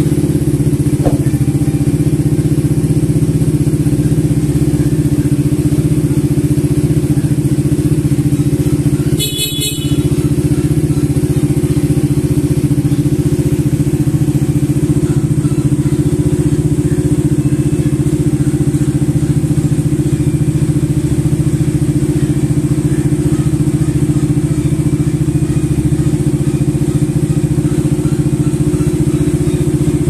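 Suzuki Gixxer SF 250's single-cylinder engine idling steadily through a full aftermarket exhaust with a modified muffler. About nine seconds in there is a brief dip in the sound and a short high-pitched noise.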